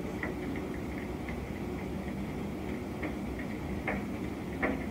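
Distant tanker-truck fire: a steady low rumble with scattered light ticks, and two sharper pops near the end.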